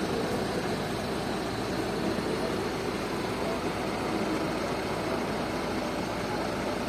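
Mobile diesel dispenser's pump running steadily while diesel flows from the nozzle into a metal measuring can during a 5-litre calibration fill.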